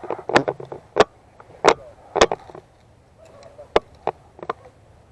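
A loosely mounted GoPro rattling on its unsecured base plate, giving irregular sharp clicks and knocks, the last about four and a half seconds in.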